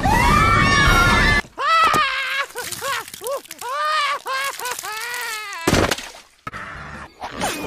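Cartoon characters screaming: a dense, loud group scream at the start, then a run of pitched wailing cries that each rise and fall, about two a second. A short loud crash comes near the six-second mark.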